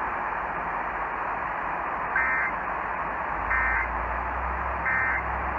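Three short Emergency Alert System end-of-message data bursts, the digital 'NNNN' code sounding as a brief buzzy chirp, about 1.3 seconds apart, over steady radio static hiss. The bursts mark the end of the evacuation alert message.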